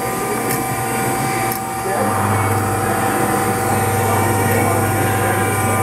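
Chevalier FSG-1224AD surface grinder running under power: a steady machine hum with a high whine, joined about two seconds in by a deeper, louder hum that holds steady.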